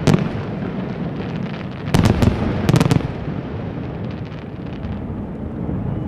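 Fireworks display: sharp bangs of bursting shells over a low rolling rumble. There is one bang at the start and a quick cluster about two to three seconds in, then fainter crackling as the bursts die away.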